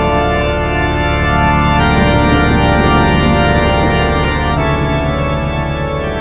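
Intro theme music of held organ chords, the chord changing twice.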